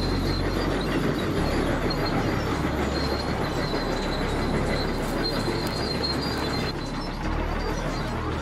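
Tracked excavators at work: metal squealing and clanking with rubble clattering, a continuous mechanical din with a thin steady high squeal through it.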